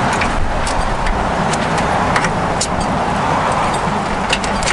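A few light metallic clicks and clinks of hand tools on a go-kart's rear frame and fittings, heard over a steady rushing background noise.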